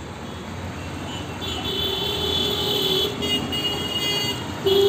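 Vehicle horns honking in street traffic: a long honk starting about a second and a half in, a brief broken one after it, and a louder honk near the end, over a steady background hiss.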